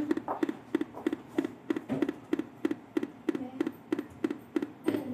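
Lenovo laptop beeping an error warning: short low beeps repeating evenly, about three a second.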